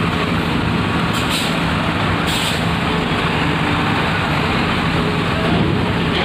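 Coach bus diesel engine running steadily as the bus creeps forward onto a ferry ramp, with two short hisses of air about one and two seconds in.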